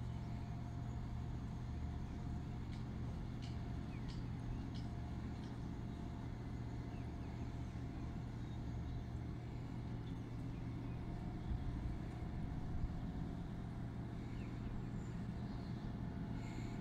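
Diesel engine of a yellow on-track maintenance machine running with a steady low drone as it pulls away along the line.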